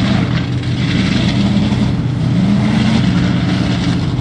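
Engine of a lifted pickup mud truck running at a steady pitch as it drives through a mud pit.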